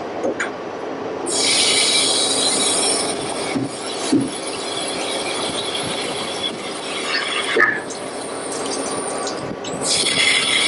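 Ship's deck machinery running as a CTD rosette water sampler is brought in through an open side hatch. A steady high-pitched squealing noise comes in about a second in, fades after a couple of seconds, and returns near the end.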